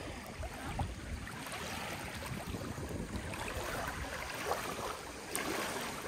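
Small waves washing against a lakeshore, with a low rumble of wind on the microphone.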